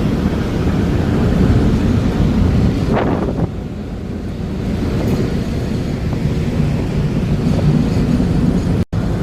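Wind buffeting the microphone: a loud, rough rumble that cuts out for a moment near the end.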